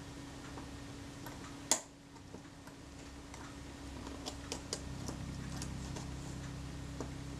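Light, scattered metallic clicks and ticks from small camera parts being handled and adjusted by hand, with one sharper click a little under two seconds in and a cluster of them around the middle, over a faint steady hum.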